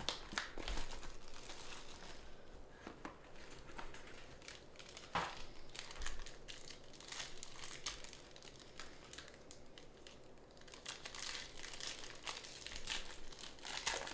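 Foil wrapper of a trading card pack crinkling and crackling as it is handled and pulled open, with sharper crackles about five seconds in and near the end.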